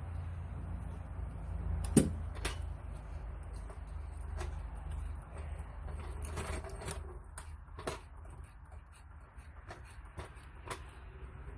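Scattered metal knocks and clanks, the loudest about two seconds in, from setting a jack under the rear differential of a van, over a steady low rumble.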